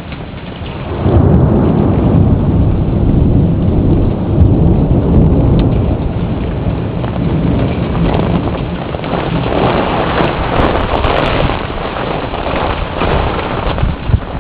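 Rain falling at night, with a long roll of thunder that breaks in about a second in, rumbles loudest for the next few seconds and slowly dies away.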